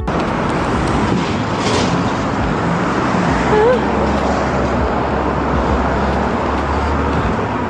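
Loud, steady street traffic noise with a deep rumble underneath.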